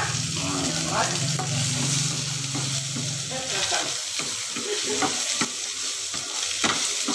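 Food frying in oil with a steady sizzle in a non-stick frying pan, stirred and scraped with a wooden spatula. The scraping strokes come thick and fast from about three and a half seconds in. A low steady hum sounds under the sizzle for the first three seconds.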